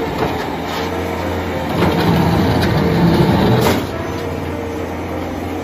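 Bobcat skid-steer loader's diesel engine running while it works its hydraulics and bucket to lift itself onto a truck bed. The engine gets louder under the load for about two seconds in the middle, with a clank near the end of that push, then settles back to a steady run.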